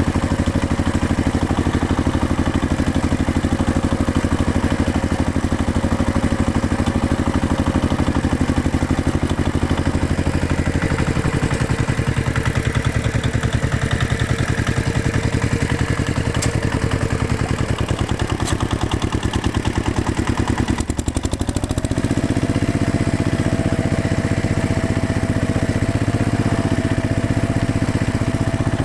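Farm tractor engine running steadily. Its note drops somewhat about a third of the way in, falters briefly about three quarters through, then carries on at a higher, steady speed.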